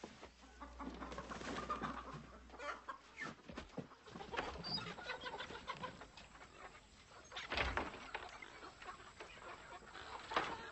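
Chickens clucking and squawking, with scattered knocks and two louder thumps, one about three-quarters of the way through and one near the end.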